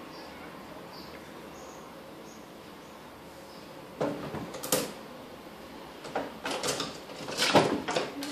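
A cat jumping up against a small wooden bedside cabinet with an open drawer: a couple of sharp knocks and scrabbles about halfway through, then a longer run of knocks, scrapes and rattling from the cat's paws and claws on the wood and drawer, loudest near the end.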